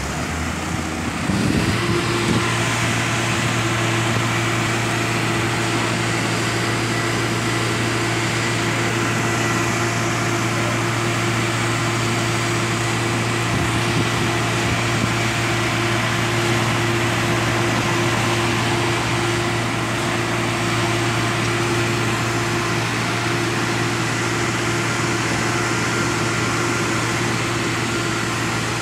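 Diesel engines of Astra concrete mixer trucks running steadily while unloading concrete, a loud even drone with a steady higher tone. The note steps up about a second in and then holds.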